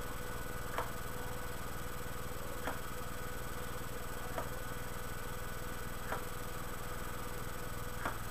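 Soft clicks, one about every two seconds, over a steady low hum and hiss.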